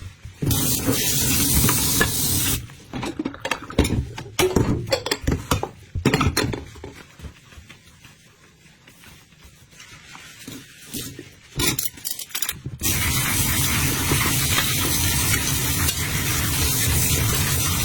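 Kitchen sounds: a steady hiss, then a stretch of clinks and clatter of dishes and utensils, and the steady hiss again from about thirteen seconds in.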